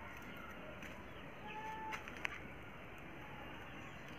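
Small birds chirping over a steady outdoor background, with one held whistled note about a second and a half in and a sharp click a little after two seconds.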